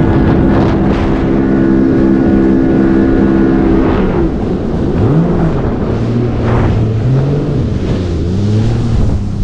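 Yamaha WaveRunner engine, fitted with a Riva Power Intake, running under way with wind and water noise. It holds a steady pitch for about four seconds, then the throttle eases and the engine pitch falls and rises several times.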